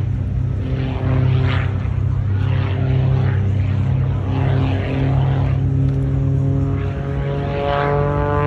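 Propeller airplane engine running steadily, a constant pitched drone with a strong low hum.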